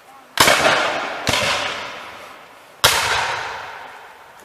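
Three black-powder gunshots, muskets firing blank charges: one about half a second in, another about a second later, and a third near three seconds. Each shot is sharp and followed by a long echoing fade.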